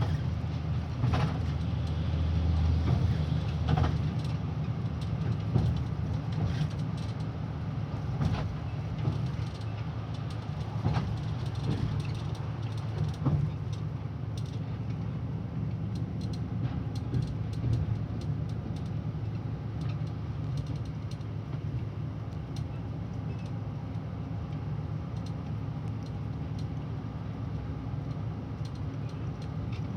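Mercedes-Benz O500RSD Euro 6 coach's diesel engine running with a steady low drone, heavier in the first few seconds, with scattered light rattles and creaks from the bus body and fittings.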